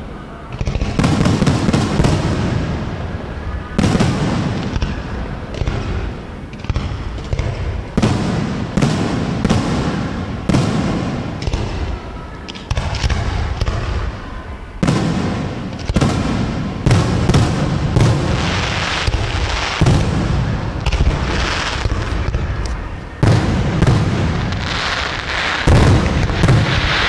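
Aerial fireworks shells bursting in a dense, continuous barrage: repeated sharp bangs, each followed by a low rumble, with crackling between them.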